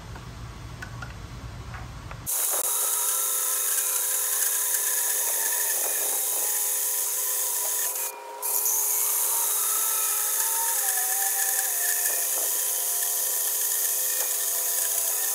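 Cordless portable band saw cutting a slot into a metal disc: a steady whine with ringing tones from the blade in the metal. It starts about two seconds in and dips briefly just past the middle.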